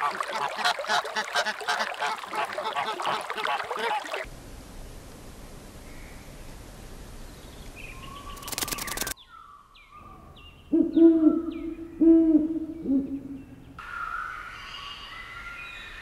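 Edited bird sounds: a dense chorus of chirping small birds, then after a quiet stretch three low, steady hooting calls, then scattered chirps.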